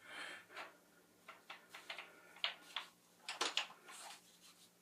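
Light, irregular clicks and knocks of a Ruger 10/22 rifle being handled, about ten in all.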